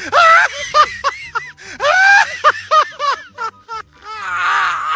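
A person laughing hysterically in quick, high-pitched bursts, ending near the end in one long, wavering, wailing laugh.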